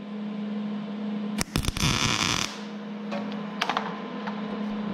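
MIG welder laying a tack weld on a turbo's wastegate arm and rod: a harsh crackling hiss of the arc lasting about a second, starting about a second and a half in, over a steady hum. A few short clicks follow.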